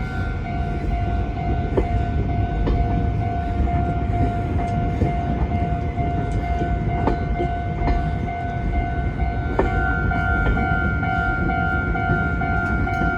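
Japanese level-crossing alarm bell ringing a steady two-tone electronic note while a diesel-hauled train rolls over the crossing, with a low rumble and scattered sharp clacks of wheels over rail joints.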